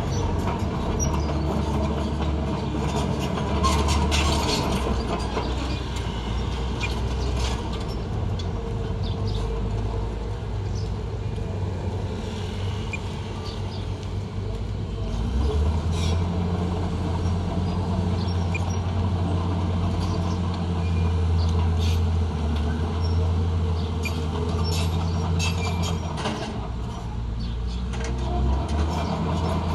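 Diesel engine of heavy earthmoving equipment running under load, a steady low drone that deepens and strengthens about halfway through, with scattered metallic clanks and knocks.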